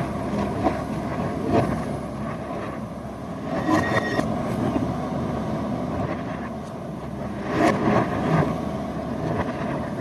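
JCB 3DX backhoe loader's diesel engine running steadily while working, with several sharp knocks through it, about a second and a half in, around four seconds in, and near the end.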